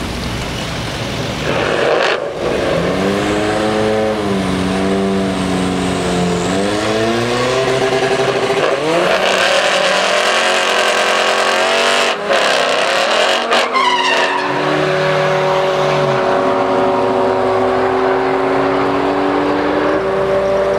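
Car engine revving hard in repeated rising and falling sweeps, with tyre squeal, during a drag-strip burnout and staging by a BMW E30 325es. About two thirds of the way through there is one sharp rising rev, and after it the engine note holds steadier.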